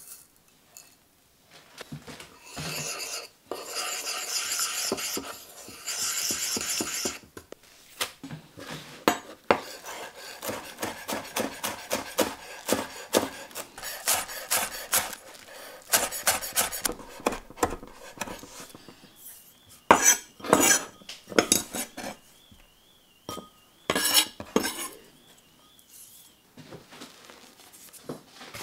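A spoon scraping and stirring in a small bowl for a few seconds. Then a chef's knife chops chives on a wooden board in quick, even strokes, with a few louder knocks later on.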